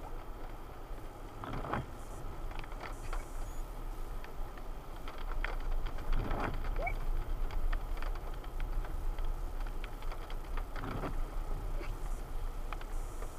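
Car cabin noise while driving: a steady low rumble with scattered knocks and rattles.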